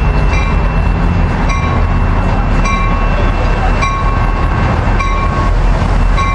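Coaster F40PHM2-C diesel locomotive arriving at the platform with a steady low engine rumble. A bell rings about once a second.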